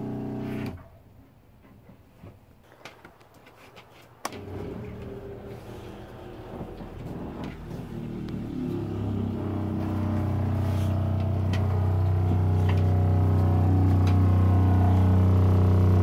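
An RV's 12-volt fresh-water pump, pumping vinegar into the water heater, stops about a second in. After a sharp click a few seconds later it starts again with a steady hum that grows louder and then holds steady as it draws vinegar from a jug through a hose into the tank.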